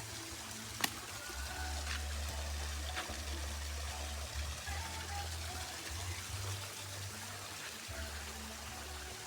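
Water flowing and trickling in a stream, a steady wash, with one sharp click just under a second in.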